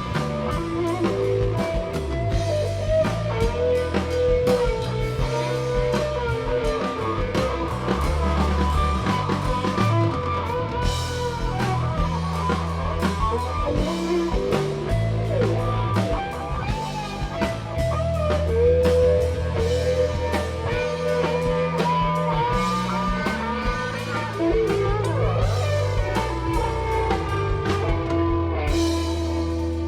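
Blues-rock band playing an instrumental passage: a guitar lead with bending notes over bass and drum kit, with a cymbal wash near the end.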